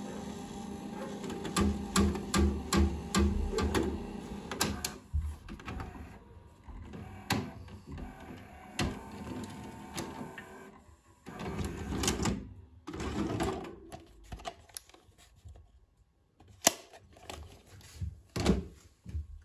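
Grundig GVP 500R VHS cassette player's tape mechanism at work. A run of low pulses, about two and a half a second, comes in the first few seconds, followed by scattered mechanical clicks and clunks, bursts of clatter around the middle and a sharp click near the end, as a cassette is handled in its front loading slot.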